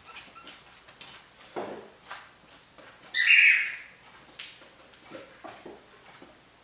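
Cats meowing and moving about on a tiled floor: light taps and clicks, a lower meow, then one short loud high-pitched meow about three seconds in.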